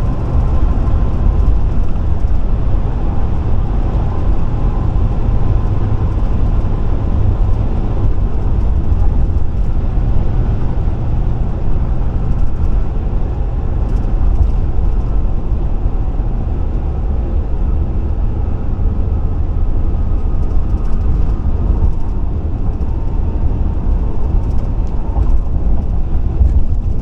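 Steady road and engine noise heard inside a Chevrolet's cabin while driving on the interstate: a continuous low rumble with no sudden events.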